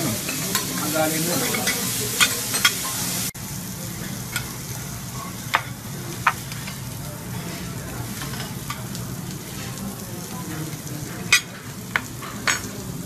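Beef and vegetables sizzling on a teppanyaki steel griddle, with scattered sharp metal clinks of the utensils against the hot plate. The sizzle drops suddenly to a lower level about three seconds in.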